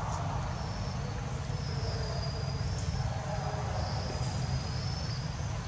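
Insects chirping in repeated high-pitched trills, each up to about a second long, over a steady low rumble.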